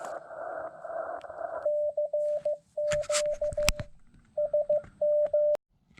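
Amateur HF transceiver audio: band hiss squeezed into a narrow passband with a Morse code signal in it. The hiss cuts off sharply about two seconds in, and a clean Morse sidetone takes over, keying groups of dits and dahs as CW is sent, with a few sharp clicks among them.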